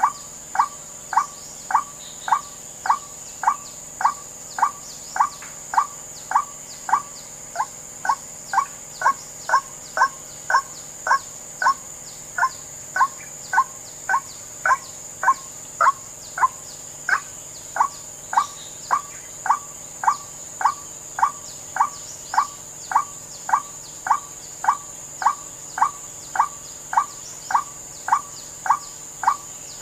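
White-breasted waterhen 'wak' call played back as a trapping lure: a short rising note repeated about five times every three seconds, very evenly, with a steady high-pitched insect drone underneath.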